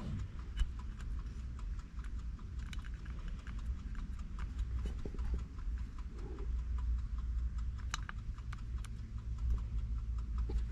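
Scattered light clicks, irregularly spaced, of buttons being pressed on a handheld EFI tuning controller, over a steady low rumble.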